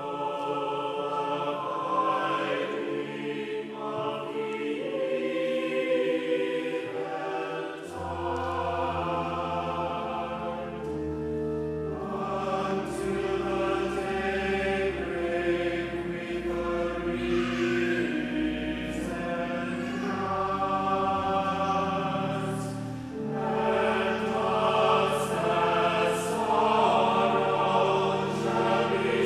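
Mixed church choir singing in parts, with deep sustained low notes coming in about eight seconds in.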